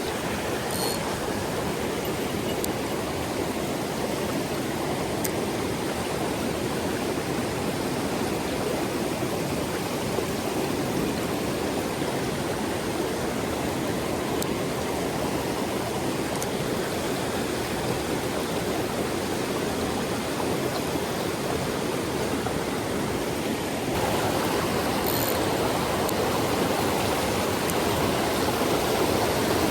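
Mountain stream water rushing steadily over rocks, getting a little louder about 24 seconds in.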